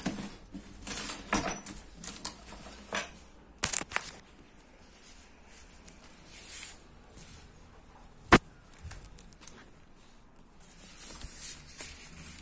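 Square insulated delivery backpack being handled: rustling and scraping of its fabric and foil-lined walls, with scattered knocks. One sharp click a little past the middle is the loudest sound.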